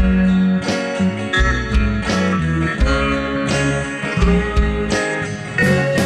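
Instrumental break of a psychedelic rock song, led by guitar over a moving bass line, with no singing.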